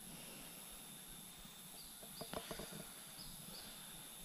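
Faint riverside rainforest ambience: a steady insect drone with short, high, falling chirps repeated now and then, and a few soft clicks about two seconds in.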